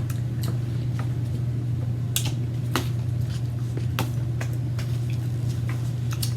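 A steady low hum, with scattered short clicks and smacks of someone chewing a lime and its peel.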